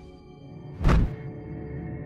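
Soft, eerie film-score music with sustained tones, cut by a single sudden, loud hit sound effect with a deep thud about a second in.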